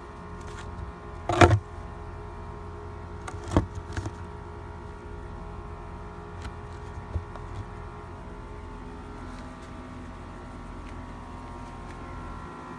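Plastic bucket lid being handled and set on a 5-gallon bucket: a sharp knock about a second and a half in, then a few smaller knocks a couple of seconds later, over a steady mechanical hum.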